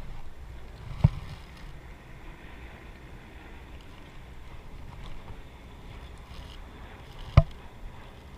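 Wind rumbling on the microphone, with two sharp knocks: one about a second in and a louder one near the end.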